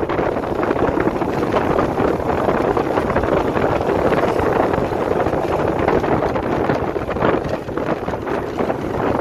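Steady wind noise buffeting the microphone of a moving motorbike, with the motorbike's engine running underneath.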